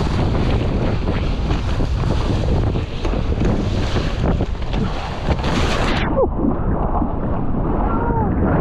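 Wind buffeting the microphone over the rush of water past a sailing boat's hull, loud and continuous; about six seconds in the sound suddenly turns duller, the hiss above the low rumble falling away.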